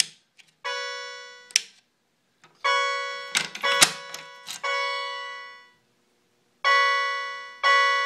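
Fire alarm notification appliances sounding an audible walk-test signal after a pull station's switch is tripped: six chime-like tones, each ringing out and fading over about a second, in uneven groups, with a few sharp clicks from the pull station's switch and housing near the start and in the middle.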